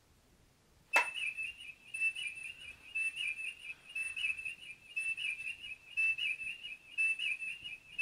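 Electronic sound effect from a battery-powered Diamond Select Toys Star Trek starship's small speaker: a click about a second in, then a high warbling electronic beep pattern that repeats about once a second.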